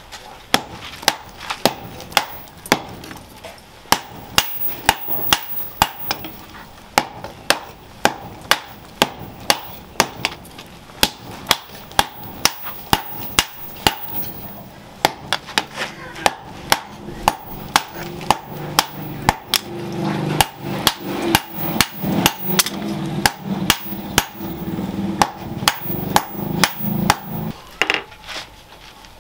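Hammers striking a red-hot machete blade on a steel post anvil in a steady rhythm of sharp blows, hand-forging the blade to shape. The blows come thicker and heavier-sounding in the second half.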